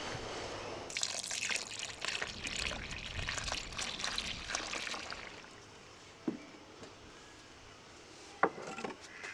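A milky liquid poured from an aluminium pot into a large aluminium pot of corn, beans and grains, splashing for about four seconds starting about a second in. Two sharp knocks follow near the end.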